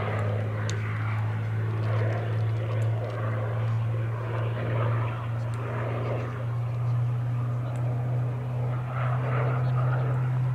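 Supermarine Spitfire LF Mk.Vb's Rolls-Royce Merlin V12 engine and propeller droning steadily as the fighter flies its display overhead, the pitch edging up a little in the second half.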